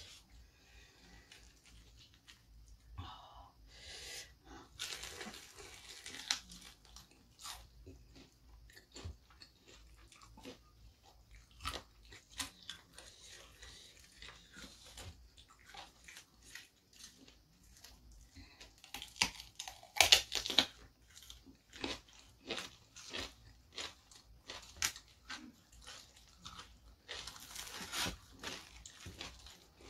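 Close-up eating sounds: crisp, crunchy bites and wet chewing of crispy fried chicken and raw vegetables, in irregular bursts of crackling, the loudest about twenty seconds in.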